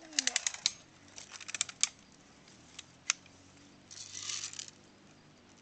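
A BB rifle being handled and readied to fire: a quick run of small clicks and rattles, more clicks a second later, a single click about three seconds in, then a brief rustle.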